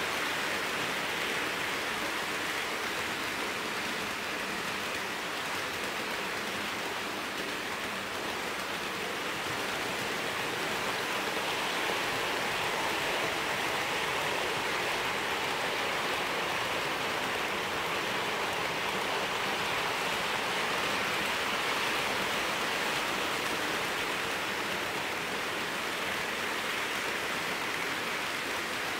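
Hornby OO gauge Class 43 HST model train running on the layout's track: a steady hiss of metal wheels rolling on rail mixed with the whir of its five-pole can motor, swelling slightly about halfway through as the train passes close.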